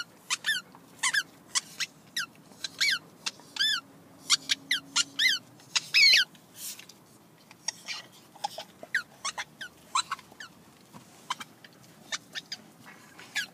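Squeaky tennis ball being chewed by a golden retriever: a quick, irregular run of short squeaks, each falling in pitch. They are loudest over the first half and fainter after.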